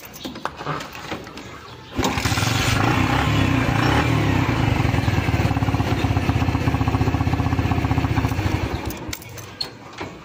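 Kawasaki Bajaj CT100's single-cylinder four-stroke engine catches suddenly about two seconds in and runs with a rapid, even beat, then falls away near the end. It is being run during repair of a weak ignition primary coil, a fault that makes it stall and start hard once hot.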